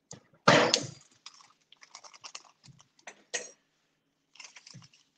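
Kitchen handling noises as cups and containers are moved while ingredients are measured: a loud knock about half a second in, a sharper click a little past the middle, and light clicks and rustling between.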